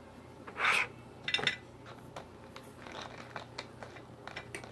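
Soda sipped through a straw from a glass of ice: a short slurp under a second in, then ice clinking against the glass and scattered small clicks.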